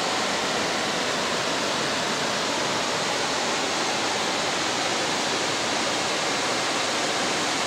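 Steady, even rush of water pouring over a nearby river dam.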